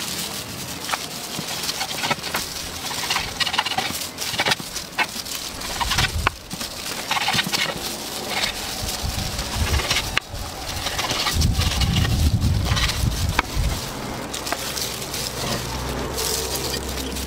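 Kitchen knife cutting and chopping roasted crocodile meat on a wooden cutting board, a series of sharp knocks. A stretch of low rumble comes about two-thirds of the way through.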